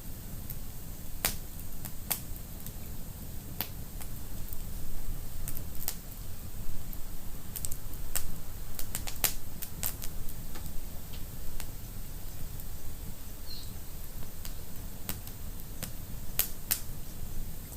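Wood fire crackling in a fireplace: irregular sharp pops and snaps over a low steady rumble of burning.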